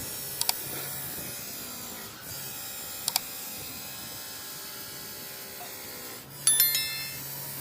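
Steady machine hum, with a quick double click about half a second in and another about three seconds in, and near the end a louder burst with high ringing tones that step down.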